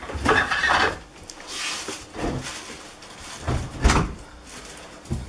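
Plastic sheeting rustling and a stainless steel dishwasher scraping as it is handled and shoved into a tight brick recess. There is a sharp knock just under four seconds in and a short dull thump near the end.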